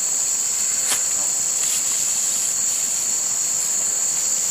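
Insects droning steadily: a constant, shrill high-pitched whine that does not change. There is a faint click about a second in.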